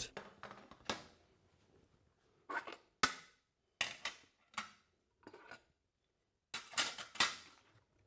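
Flat metal electrodes of an electrode steam humidifier's steam cylinder being pulled out of the plastic cylinder half and laid down on a table: a dozen or so short clinks and knocks, spaced irregularly, with a quick cluster near the end.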